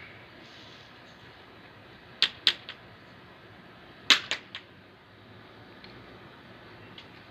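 Lengths of plastic water pipe knocking together as they are handled: two quick clusters of three sharp knocks, about two seconds apart, the second louder.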